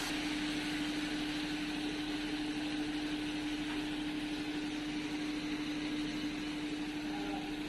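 Steady machine hum: one unchanging tone over an even hiss.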